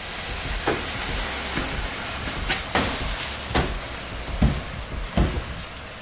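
Snow and meltwater sizzling and hissing into steam on the hot top of a wood stove, steady throughout, with a few short knocks as the snow-packed tank is worked over it.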